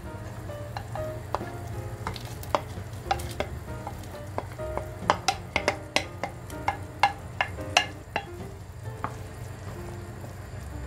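Diced potatoes tipped from a bowl into a pot of simmering soup: a run of sharp plops and taps, thickest a little past the middle, then a wooden spoon stirring the soup near the end. Soft background music plays underneath.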